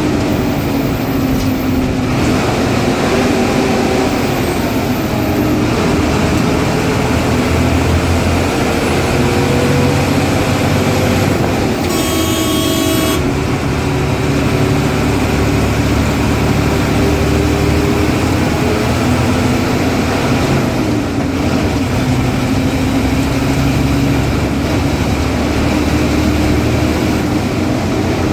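Ashok Leyland diesel bus engine running hard, its pitch rising and falling with the speed. About twelve seconds in, a horn sounds once for about a second.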